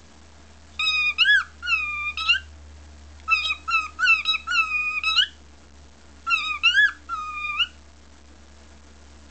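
Cockatiel whistling in three short phrases of sliding, warbling notes, over a low steady hum.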